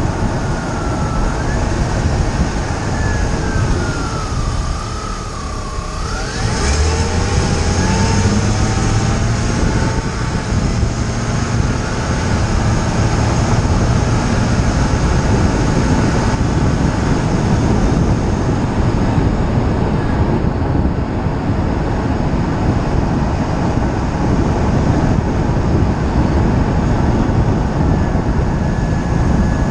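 Steady tyre and road rumble with wind noise, heard from a camera mounted behind a wheel of a moving BMW E46 325xi. In the first few seconds a wavering tone glides down and then back up, and a low hum joins the rumble from about seven seconds in.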